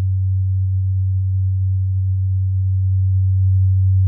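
Steady, loud low pure tone from a sine-wave oscillator, the tone vibrating the plate and driving the convection of the lycopodium powder heap. A faint higher tone joins about three seconds in.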